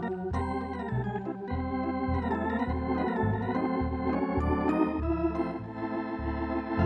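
Organ music: sustained chords and a melody over a bass line that steps about twice a second.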